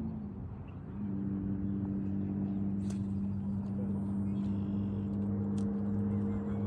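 An engine running steadily at a constant pitch. Its pitch dips and it fades for about a second at the start, then settles lower and steady. A couple of faint sharp clicks come around three seconds and five and a half seconds in.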